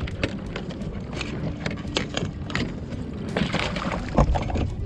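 Landing net and gear knocking and clattering against a plastic kayak over water lapping at the hull, with a splash as the net comes up out of the water and a louder thump about four seconds in.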